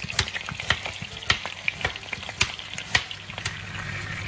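Crinkle-cut knife chopping carrot rounds on a cutting board, a sharp knock about twice a second over a faint frying sizzle. Near the end the knocks stop and chicken drumsticks sizzle steadily in oil as they are turned in the pan.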